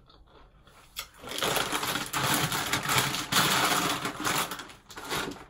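A click about a second in, then a plastic snack wrapper crinkling as it is handled for about three seconds.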